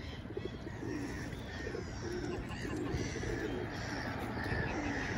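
Pigeons cooing: a run of low coos, one after another.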